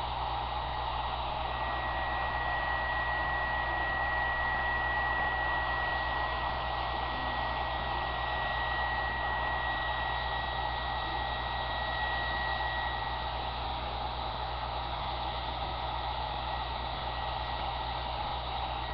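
Handheld blow dryer running steadily: a rush of air with a steady high motor whine.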